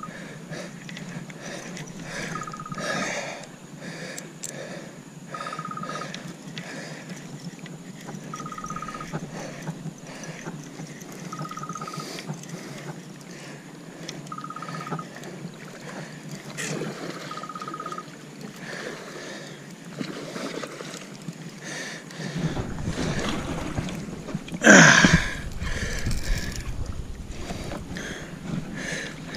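Water and wind noise around a fishing kayak, with a short, high buzz of rapid clicks about every three seconds through the first eighteen seconds. About 25 seconds in there is one loud rising whoosh.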